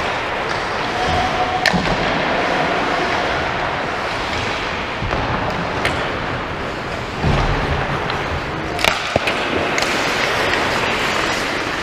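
Ice hockey play on a rink: the steady scrape of skates on the ice, with sharp cracks of sticks and puck every few seconds and a dull thud about seven seconds in.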